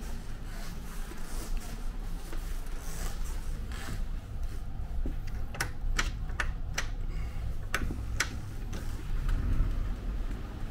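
Curtain being pushed aside at a window: a low handling rumble, then a little past halfway about half a dozen sharp clicks over two or three seconds, typical of curtain runners sliding in their track.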